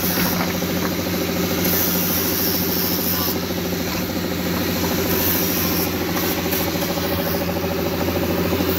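Handheld grinder fitted with a sanding disc running steadily as it is worked over the friction faces of brake pads.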